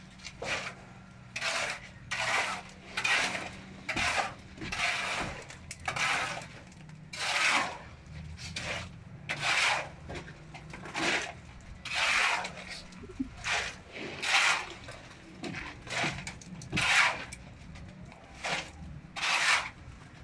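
Rhythmic scraping strokes of a hand tool, about one a second, each a short rasp, over a steady low hum.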